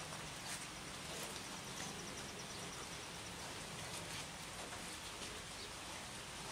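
Steady rain falling on leafy shrubs and wet ground, a continuous even hiss with scattered drop patters. About two seconds in, a faint rapid high-pitched trill sounds briefly over it.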